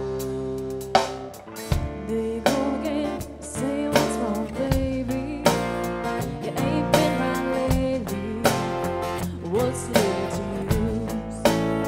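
Instrumental song intro: guitars playing over a steady beat, with a strong hit about every second and a half.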